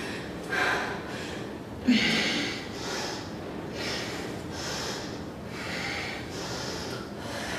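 A woman breathing hard and rhythmically through nose and mouth while exercising, with quick, hissy breaths coming about every half second to second. There is one short voiced exhale about two seconds in.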